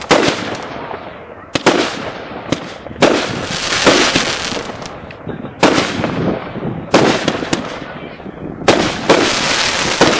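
Consumer fireworks going off one after another: about seven sharp bangs of aerial shells bursting, each followed by a hissing tail that fades over about a second.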